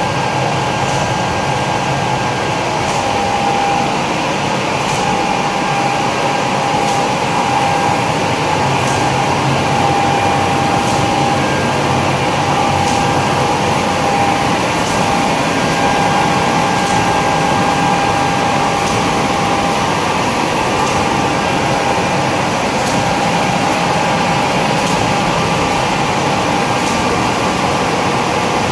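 Label finishing machine with a silk screen print unit running: a steady mechanical hum with a held whine, and a faint tick about every two seconds.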